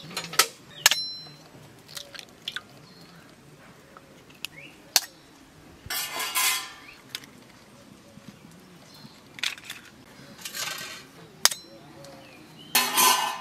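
Eggs being cracked and shelled over stainless steel bowls: sharp taps and clinks of shell on steel, and three short crackling rustles of shell breaking and coming away, the last near the end.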